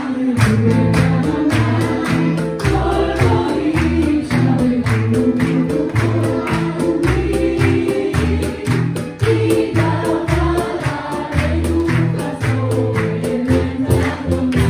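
Congregation and worship band singing a Hebrew worship song together with instrumental backing, the crowd clapping steadily on the beat.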